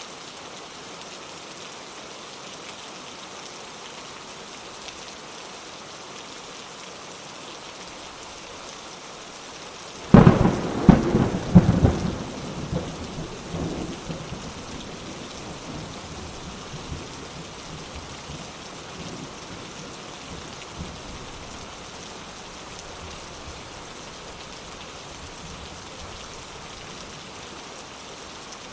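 Steady rain falling, with a sudden loud thunderclap about ten seconds in: a couple of seconds of sharp cracks, then rumbling that fades away over several seconds.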